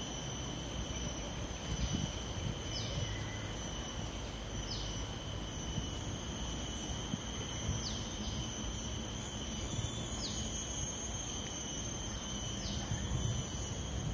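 Steady high-pitched drone of insects in the trees, with a short falling chirp repeating every second or two. A low rumbling noise sits underneath.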